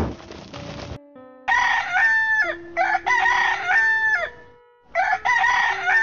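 Rooster crowing loudly, three long crows in a row starting about a second and a half in, after a second of noise at the start.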